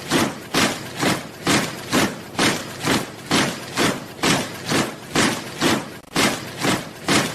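Soldiers marching in step: boots striking the ground together in a steady cadence of about two steps a second.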